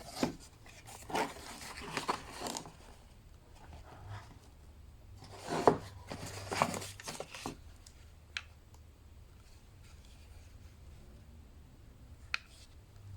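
Packaging being opened by hand: cardboard and wrapping scraping, tearing and crinkling in irregular short bursts, with a couple of sharp clicks later on.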